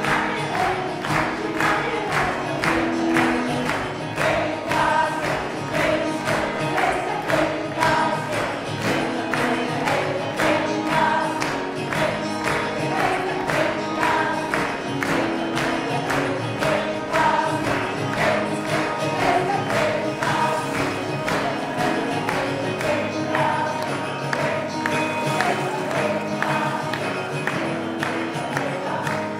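A choir singing a song together, with a steady beat about twice a second under the voices.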